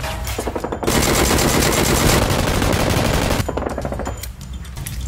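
Rapid automatic gunfire, shots coming in quick succession, heaviest through the middle and thinning out near the end.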